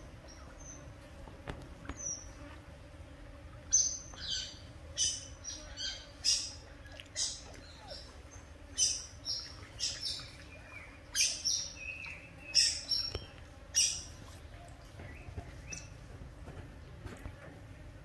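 Otters chirping: a quick series of short, high-pitched squeaky calls, about two a second, starting about four seconds in and thinning out to a few fainter ones near the end.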